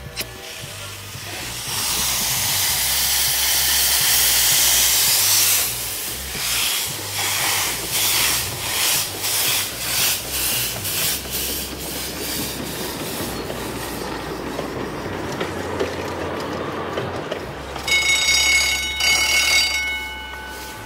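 Grand-scale live steam locomotive hissing loudly with open steam valves, then chuffing at about two to three beats a second as it pulls away and runs along the track. Near the end its steam whistle sounds for about two seconds.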